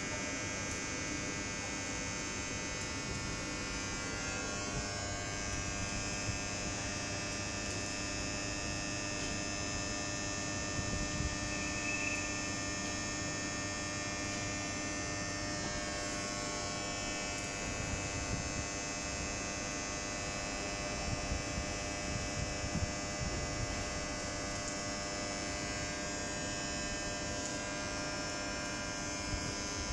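Steady electrical hum with several high, constant whining tones from a standing electric passenger train's onboard equipment.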